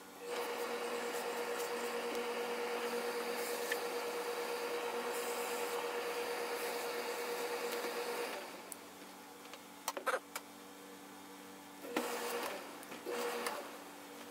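Steam iron on a hose from an overhead steam supply, letting out a steady hiss of steam with a hum as it presses the jacket for about eight seconds. After it stops come a few sharp clicks, then two short bursts of steam near the end.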